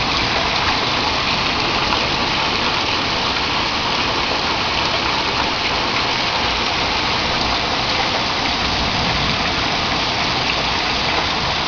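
Heavy rain pouring down steadily, a downpour hard enough to flood the lawn.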